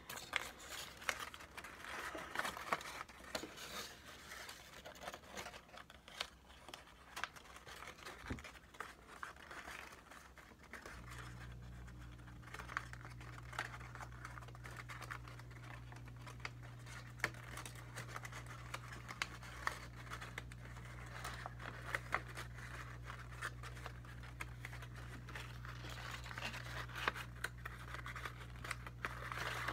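A sheet of paper being handled and creased into pleated origami folds, giving irregular crinkling and scratching rustles with small clicks. About eleven seconds in, a low steady hum starts underneath.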